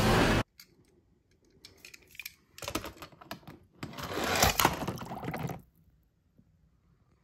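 Die-cast toy car handled and pushed along a plastic toy track: scattered light clicks, then two stretches of rattling, scraping clatter, about two and a half and four seconds in. A loud snatch of film soundtrack cuts off suddenly half a second in.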